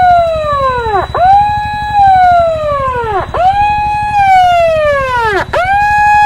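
A siren wailing: its pitch jumps up quickly, holds briefly, then slides slowly down, the cycle repeating about every two seconds, three times.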